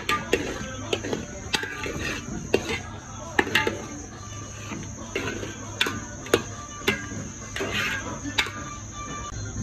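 A spoon knocking and scraping against a metal pot as thick tomato sauce is stirred, in irregular clicks every half second or so, over a steady high-pitched tone.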